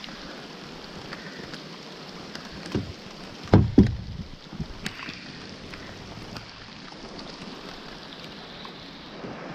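Steady rain falling on a river's surface, with scattered light drop clicks. A few loud low knocks about three to four seconds in.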